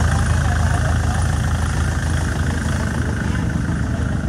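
Kubota tractor's diesel engine idling steadily.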